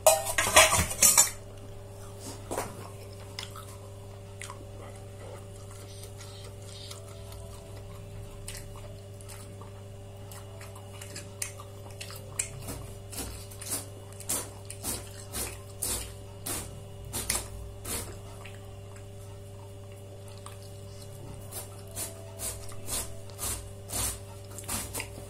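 Dishes and utensils clinking and knocking now and then over a steady hum, with a louder clatter in the first second.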